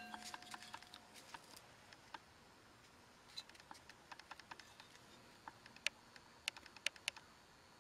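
Faint, irregular light ticks and scratches of a woodburning pen's medium skew tip making short strokes on a tupelo-wood carving.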